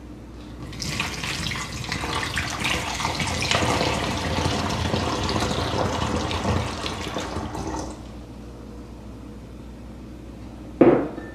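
Warm water poured from a glass measuring cup through a plastic funnel into a 2-liter plastic soda bottle, running steadily for about seven seconds and then stopping as the bottle fills. A brief thump near the end.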